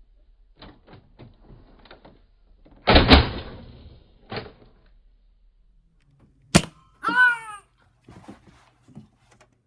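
Nerf blaster fight: light clicks, then a loud thunk about three seconds in and a smaller one just after, a sharp crack past the middle, and a short falling yelp right after it.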